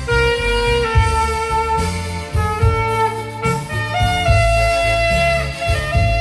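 Alto saxophone playing a slow, held-note melody over keyboard backing with a steady bass and drum beat.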